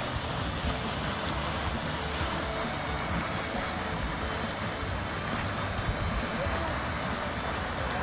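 Mud Volcano's hot, muddy pool churning and venting steam: a steady rushing noise with a low rumble beneath.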